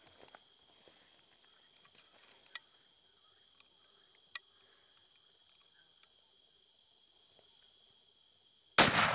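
Insects chirp steadily in a high, pulsing chorus. Near the end a single rifle shot cracks out, by far the loudest sound, and its boom rolls away slowly.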